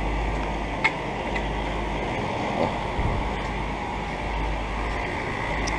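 Outdoor central air conditioner condensing units running: a steady whoosh of the condenser fans over a low compressor hum, with a brief click about a second in.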